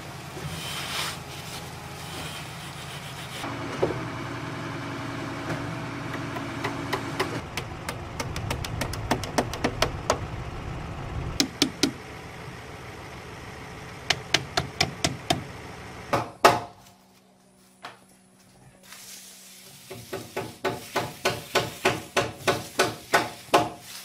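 A concrete pump's steady low rumble for the first several seconds, then hammer blows driving nails into timber in quick runs of strikes, with one loud knock about sixteen seconds in and a regular run of blows near the end.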